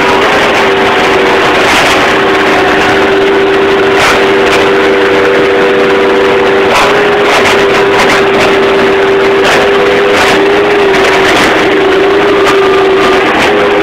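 Bobcat skid-steer loader's engine running hard with a steady whine, heard from the cab, with repeated knocks and crunches as the loader breaks up wooden debris.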